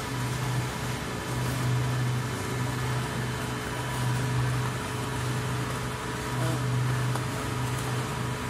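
1000 kg pan mixer running, its paddles churning a load of crumbly mix: a steady low machine hum that swells and dips in a slow, regular pulse, over a constant rushing noise.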